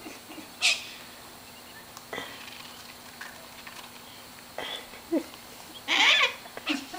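Wild cockatoos giving short, harsh calls, several separate ones with gaps between them, the loudest and longest about six seconds in.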